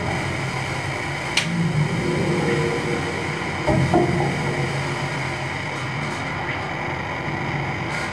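Live electronic drone from a table of electronic instruments and effects pedals: a steady low rumbling hum, with a sharp click about a second and a half in and a knock with a short pitched fragment around four seconds.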